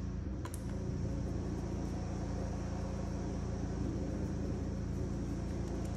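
A steady, low mechanical hum, with a single faint click about half a second in.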